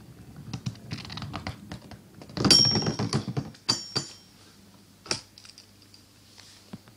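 Beyblade spinning tops clashing and clattering against each other and the stadium rim, with a loud rattling burst and a brief metallic ring about two and a half seconds in, followed by a few separate sharp clicks as the battle ends.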